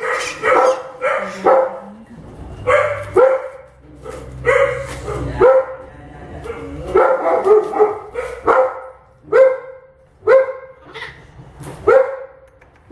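Orphaned baby howler monkey calling out in repeated short, sharp yelps, about one a second with brief pauses, objecting to being restrained for veterinary treatment.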